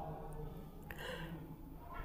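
Quiet pause in a small room: a faint steady hum, with a short soft breath about a second in.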